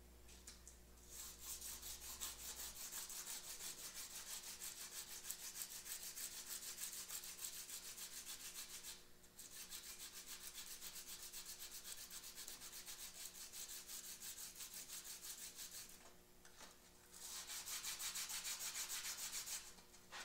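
A small steel tool tooth rubbed back and forth on a sheet of sandpaper laid flat on a steel bench: hand sanding that trues up the piece. The quick, scratchy strokes come in three bouts, pausing briefly twice.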